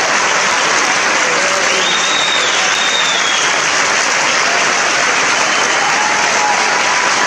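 A large audience applauding loudly and steadily, with a few faint voices or whistles just audible above the clapping.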